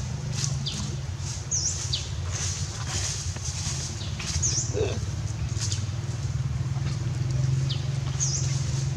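A steady low motor-like hum runs throughout. Over it a bird gives short high chirps every few seconds, some rising and falling quickly and some sliding downward.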